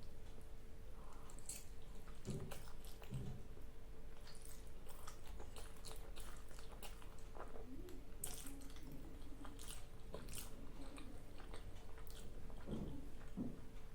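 Close-miked chewing of a mouthful of spicy black bean ramen noodles, with many short wet mouth clicks and smacks and a few soft low thuds, likely swallows.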